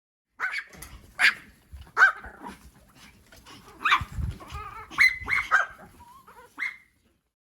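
An animal making a run of about eight short, sharp calls at uneven intervals.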